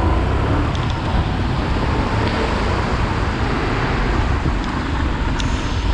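Steady wind rushing over a hand-mounted GoPro's microphone during a ride, with vehicle and road noise underneath.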